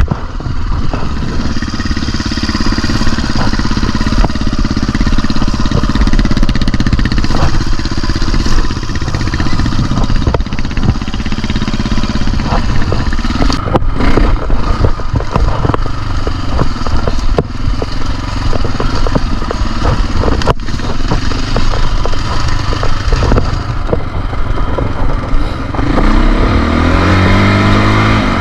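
KTM dirt bike engine running while riding, its pitch rising and falling with the throttle, with scattered knocks and rattles. Near the end the engine revs up sharply.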